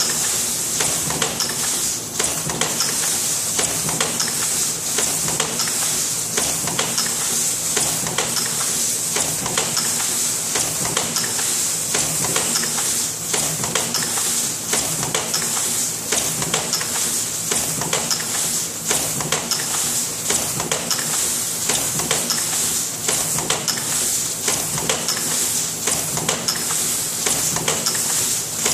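Aluminium foil container press running, its die stamping trays out of a foil sheet: a steady hiss with frequent clicks and knocks over a low hum.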